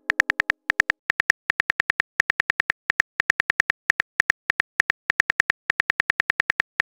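Phone keyboard typing sound effect: a fast, slightly uneven run of short clicks, about seven a second, as a text message is typed out letter by letter.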